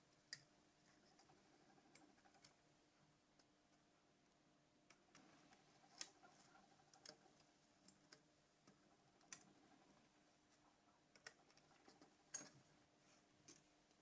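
Near silence broken by faint, scattered clicks and ticks of small tools and phone parts being handled, irregularly spaced, the sharpest about six seconds in and about twelve seconds in, over a faint steady hum.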